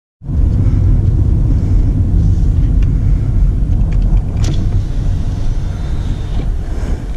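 Car driving, heard from inside the cabin: a loud, steady low rumble of road and engine noise that cuts in suddenly just after the start, with a brief sharp click about four and a half seconds in.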